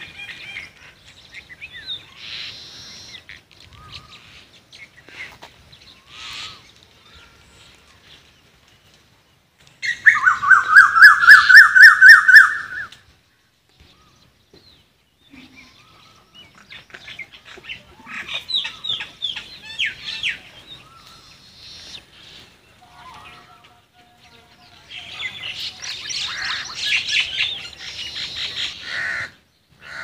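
Birds chirping and calling: scattered calls, then a loud run of rapid repeated calls about ten seconds in that lasts about three seconds, and more bursts of chirping later.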